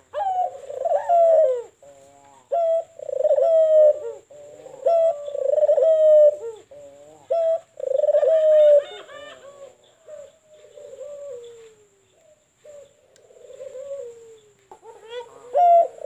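White Barbary dove (domestic ringneck dove, 'puter putih') cooing in repeated phrases of about a second each, with short breaks between them. Through the middle the coos turn softer and slide down in pitch, then loud cooing starts again near the end.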